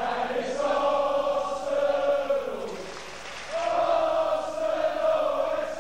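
A large group of voices chanting together in unison, like football supporters singing, with long held notes. One phrase fades about halfway through and a new one starts.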